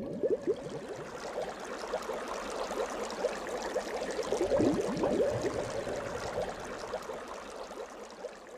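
Water bubbling and gurgling, loudest about halfway through and fading near the end.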